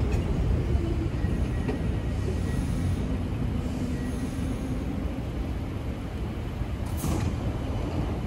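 R46 subway train's low rumble, slowly fading as the train slows and stands at the platform, with a short hiss of air about seven seconds in as its doors open.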